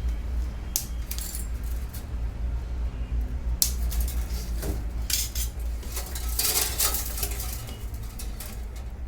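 Small metal parts clinking and scraping in a series of short, irregular sounds, busiest about six to seven seconds in, as an electrician handles and works a power cable's wire strands and fittings. A steady low rumble runs underneath.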